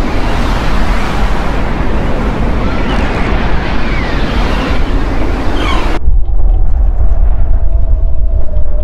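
Horror-film ambient sound design: a loud rushing noise that cuts off abruptly about six seconds in, giving way to a deep rumble under a steady droning tone that sinks slightly in pitch.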